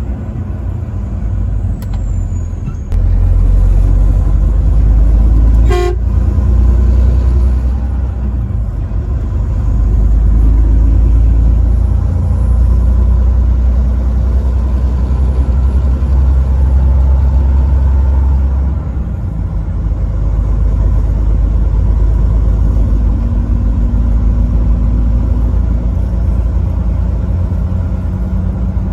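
Truck on the highway: a steady low engine and road rumble that swells about 3 seconds in and eases back a little after 19 seconds, with one brief sharp blip about 6 seconds in.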